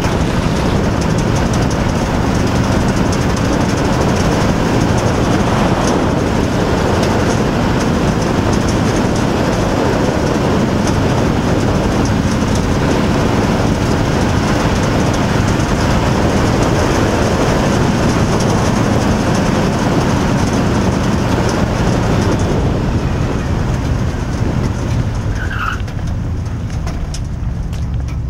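Race car engine running hard at speed around a dirt oval, with heavy wind and track noise on the in-car camera microphone. It eases off and gets quieter near the end as the car slows.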